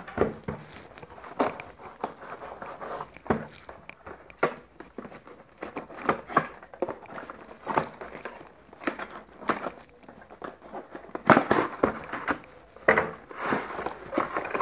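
Brown paper wrapping on a small cardboard parcel being torn and crinkled open by hand: irregular rustles and sharp tearing scrapes, louder near the end.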